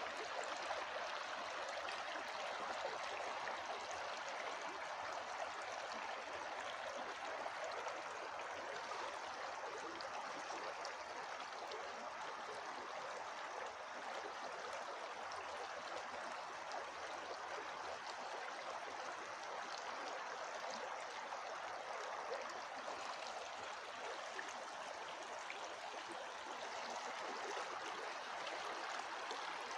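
Shallow, fast-flowing river rushing over stones: a steady, even sound of running water.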